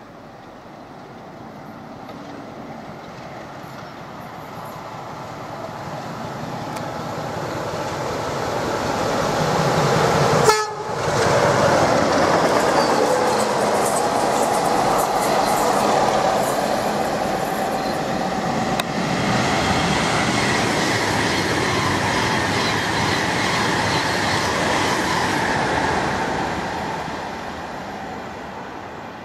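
Train hauled by a locomotive approaching and passing at speed: the rumble and wheel noise build steadily, break off sharply about ten seconds in, stay loud through the pass with a horn sounding, then fade near the end.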